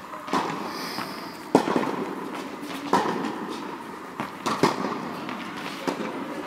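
Tennis balls being hit with rackets and bouncing on the court: a string of sharp pops roughly a second apart.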